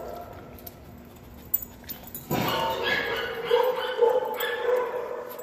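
A dog whining in drawn-out, wavering high notes that start about two seconds in and carry on steadily.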